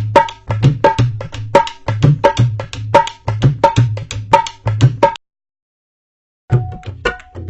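Dholak drum playing a repeating rhythm of deep bass strokes and sharper ringing strokes. It stops abruptly about five seconds in, and after a brief silence a different dholak pattern starts.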